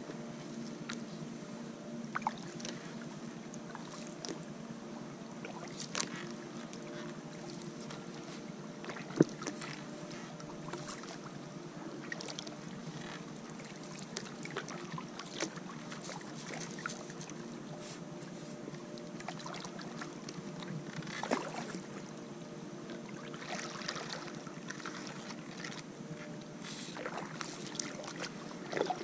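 Kayak paddle strokes through still swamp water, with scattered small clicks and knocks of the paddle and hull, over a steady low hum. One sharp knock about nine seconds in stands out above the rest.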